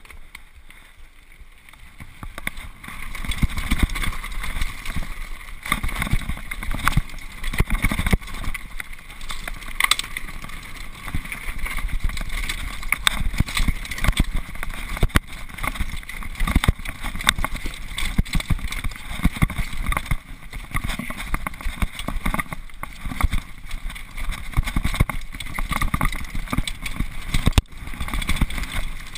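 Xprezo Furax downhill mountain bike descending a rough trail, heard from a helmet-mounted camera: rushing wind on the microphone and a constant clatter of knocks and rattles as the bike hits rocks and roots. It starts quieter and picks up about two seconds in, once the bike gets going.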